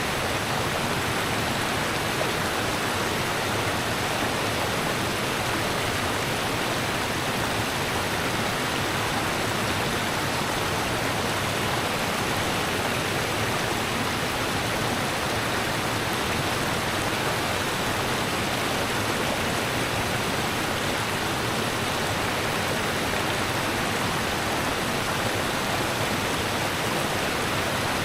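Rushing river water, a steady even rush.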